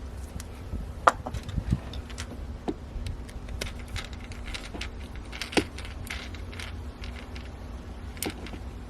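Scattered light clicks and clinks of small hardware and wiring being handled while mounting a doorbell, over a steady low rumble.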